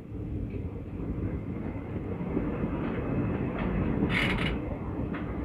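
Passenger train running along the track, heard from the side of a moving coach: a steady rumble of wheels on rails that grows a little louder. A brief hiss comes about four seconds in.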